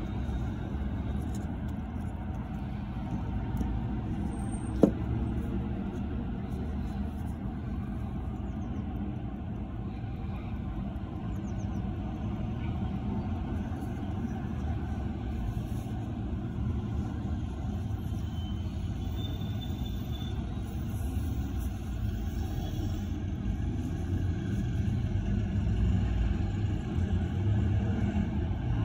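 Steady low rumble of background noise, with one sharp click about five seconds in.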